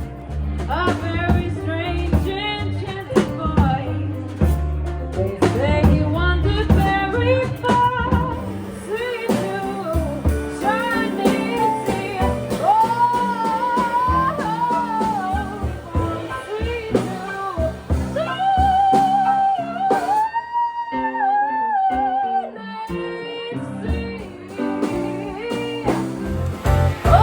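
Live band music in a blues-jazz style: a singer over guitar and a steady bass line. The bass drops out for about two seconds a little past the middle, then the band comes back in.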